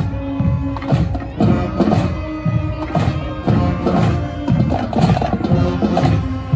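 High school marching band playing: brass holding chords over a steady drum beat of about two strikes a second.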